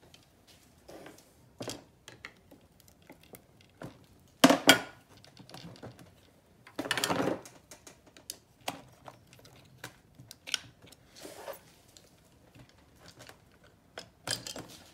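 Outboard powerhead crankcase halves being pried apart with a screwdriver: scattered metal clicks and taps, two sharp knocks about four and a half seconds in, a short scrape near seven seconds, and more knocks near the end.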